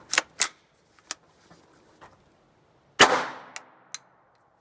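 A single shot from an Intratec Tec-22 .22 LR pistol about three seconds in: one sharp crack with a short fading tail. Before it come a few metallic clicks of the gun being handled, and after it two small clicks.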